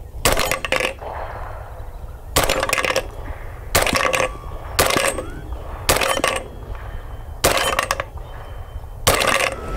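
Seven suppressed shots from a 300 Blackout AR pistol with a 4.75-inch Mos-Tek barrel and an Energetic Armament VOX S suppressor, fired at an uneven pace one to two seconds apart. Each shot is followed by a brief metallic ring from the steel popper targets being hit.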